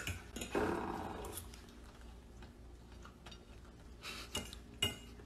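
Faint clinks of cutlery against a dinner plate: a few sharp taps at the start and again near the end, with a short low sound about half a second in.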